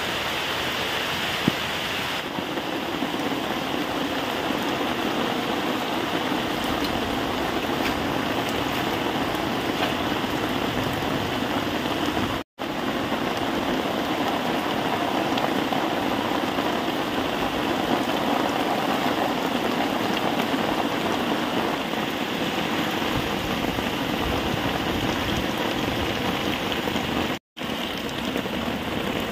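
Steady rain falling, an even hiss of water with no pitched sound in it, which drops out abruptly twice, briefly.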